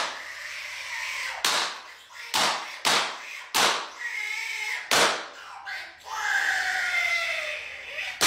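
About half a dozen loud, sharp bangs at uneven intervals, with a voice screaming between them.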